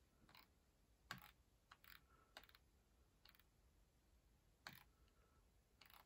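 Faint, irregular clicking at a computer: about eight light clicks, the loudest about a second in and just before the end.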